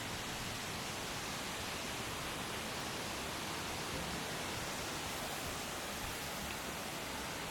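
Steady rush of water running high after rain, an even hiss with no breaks.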